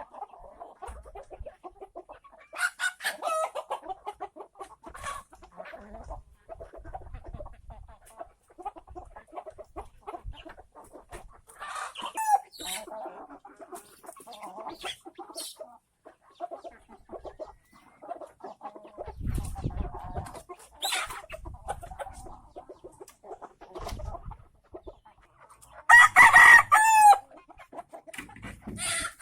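Chickens clucking in short scattered calls, with a rooster crowing loudly once near the end.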